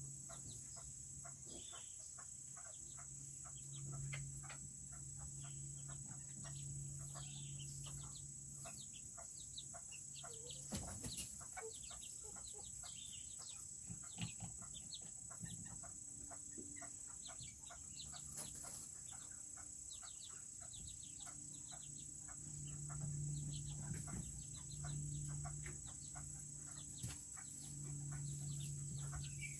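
Serama bantam chickens calling: a constant scatter of short, high chirps and clucks. A low, steady hum comes and goes underneath.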